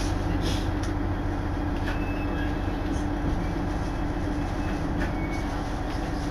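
Steady engine hum inside a diesel railcar, with a few faint clicks and knocks from the carriage.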